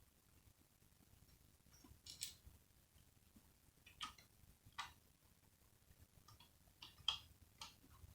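A few faint, sharp clicks and ticks of a small screwdriver and screw on a laptop's plastic case as the screw is set and driven in, with a cluster of clicks near the end.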